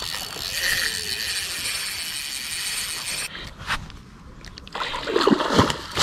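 Hooked pike thrashing and splashing at the surface for about three seconds. A second bout of splashing comes near the end as the fish is brought to the landing net.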